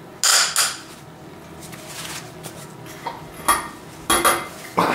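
Metal clinks and clanks of a long 12-point socket and breaker bar being fitted onto a cylinder head bolt of a Toyota 5S-FE engine: two sharp clinks right at the start, then more a little after three seconds in and around four seconds in.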